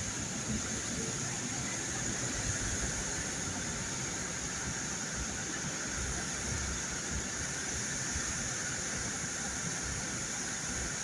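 Steady noise of a car driving through heavy rain: tyres hissing on the wet road under a low running hum.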